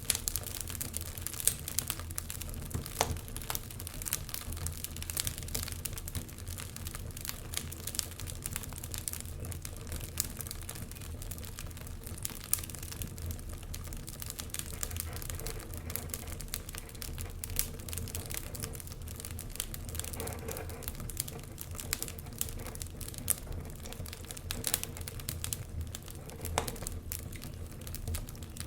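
Wood fire crackling with irregular sharp pops, over a low steady rumble of winter wind.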